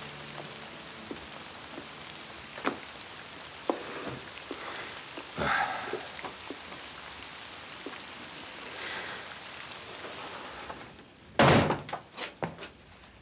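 Steady rain falling, with a few faint knocks, then a cluster of loud thumps a little past eleven seconds in.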